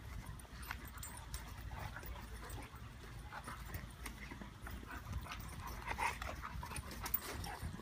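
Two dogs play-fighting, making short dog vocal noises amid scuffling; the loudest noises come about six seconds in.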